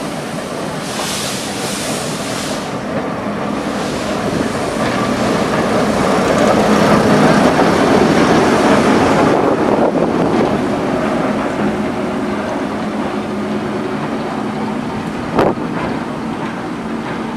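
Train pulling out past the platform: coaches running by on the rails with a steady engine hum, growing loudest as the locomotive passes about seven seconds in, then easing as it moves away. A brief hiss comes near the start and a single sharp knock near the end.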